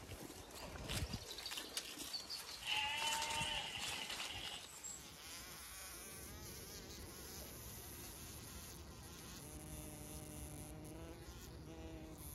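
An insect caught by the wing in a spider's web, buzzing in a couple of short bursts in the last few seconds as it struggles. Before that, among sheep feeding, a loud bleat is heard about three seconds in.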